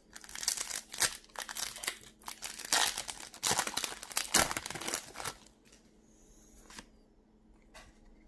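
Foil wrapper of a Pokémon card booster pack crinkling and tearing as it is pulled open, for about five seconds, then a few faint ticks from handling the cards.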